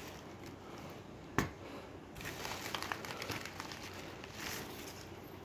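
Plastic bubble mailer crinkling and rustling as hands dig through it, with one sharp click about a second and a half in.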